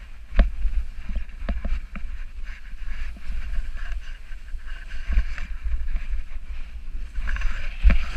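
Snowboard sliding and scraping over packed snow during a downhill run, with wind rumbling on the microphone and scattered knocks and clatters.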